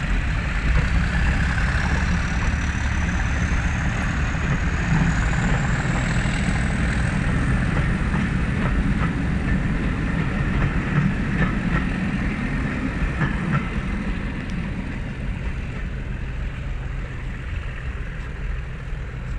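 Passenger coaches rolling past on steel wheels, clicking over the rail joints, over the steady low drone of a Class 37 diesel locomotive's engine. A thin high whine rises in pitch over the first several seconds, and the sound fades near the end as the train draws away.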